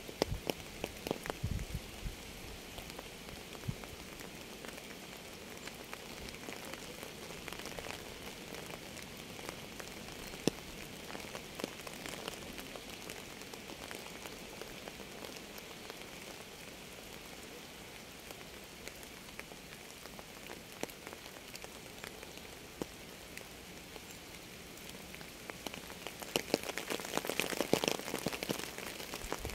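Steady rain with individual drops striking close by as sharp ticks, thicker clusters of drops in the first couple of seconds and again near the end.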